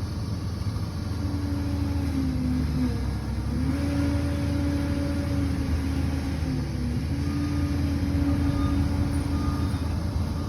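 Liebherr PR 746 bulldozer's diesel engine running steadily, its pitch dipping briefly twice, once about a quarter of the way in and again past the middle.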